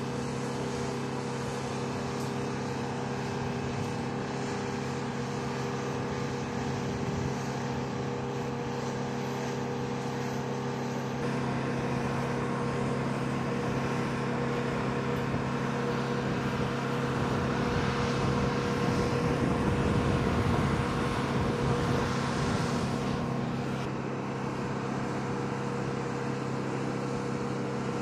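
Steady hum of running machinery on an aircraft flight line, several fixed tones over a noisy wash, growing louder for a few seconds past the middle and then easing back.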